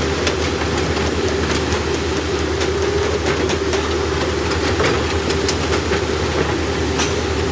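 JCB 220 LC excavator's diesel engine running steadily at working revs, with frequent short metallic clicks and clanks from the working machine.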